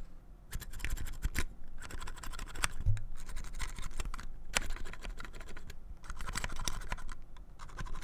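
Keys of an Ace Pad Tech Hall effect keyboard pressed and worked one at a time close to the microphone: irregular soft clicks with a scratchy rubbing of the switch sliders, the grainy key feel of the earlier model of the board.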